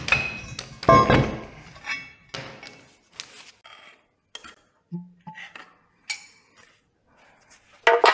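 Metal clinks, knocks and clatter of hand tools and steel parts being handled and set down, in separate strikes with quiet gaps. There is a louder clatter about a second in and another near the end.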